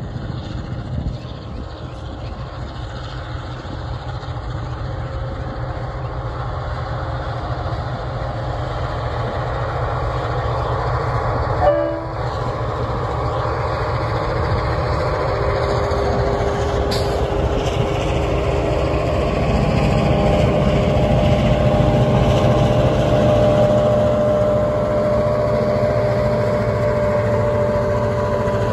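A freight train led by several vintage diesel-electric locomotives approaches and passes, its engines getting steadily louder as the lead units draw near. It is a deep rumble with a steady engine note.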